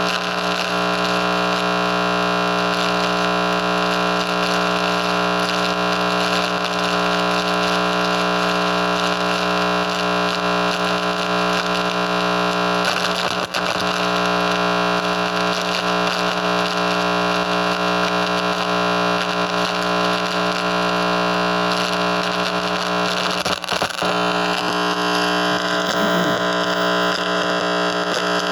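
Audio output of a Pasco microwave receiver: a loud, steady electronic buzz of many overlapping tones and static, with two short dropouts about 13 and 23 seconds in.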